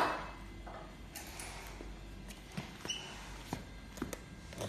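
A sharp noise right at the start that fades over about half a second, then scattered light clicks and knocks of handling, with a brief high squeak about three seconds in.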